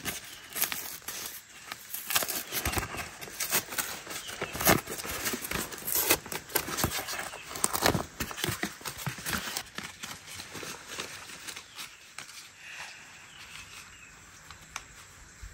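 Paper rustling and crinkling as an airmail envelope is opened and banknotes are handled: quick, irregular crackles that thin out and grow fainter after about ten seconds.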